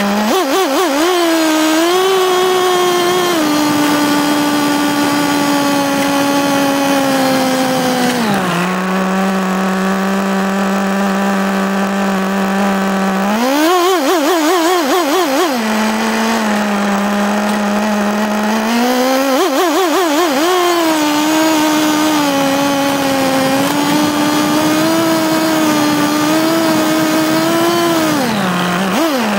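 Nitro RC car's two-stroke glow engine, heard close up from a camera on the chassis, running at high revs. It drops to a lower steady note about eight seconds in, is blipped up and down in quick bursts of throttle a few seconds later, climbs back to a high steady note, and drops again near the end.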